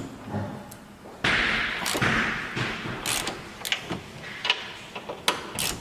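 Sharp metal knocks and clicks of hand tools and suspension parts being handled during front strut work, with a burst of hiss lasting over a second about a second in.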